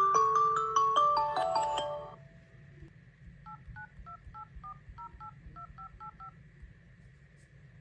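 A phone's melodic, bell-like ringtone playing a quick tune that stops about two seconds in. A quick string of faint keypad dialing tones follows as a number is dialed for an outgoing call.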